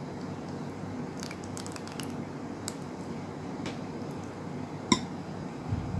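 Thick custard being poured from a bowl into a glass over crumbled cake: faint soft squishing with a few small ticks, then a sharp ringing clink of dish against glass about five seconds in.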